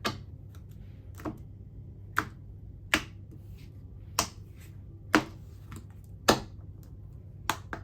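A deck of affirmation cards being shuffled by hand: a run of sharp card slaps, roughly one a second at an uneven pace, over a low steady hum.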